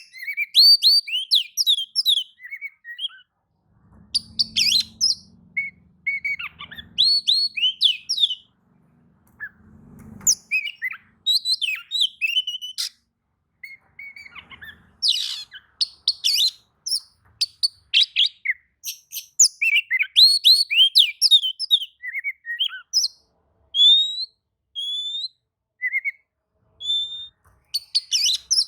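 Oriental magpie-robin (kacer) singing: quick runs of varied whistles and chirps, with short pauses between phrases.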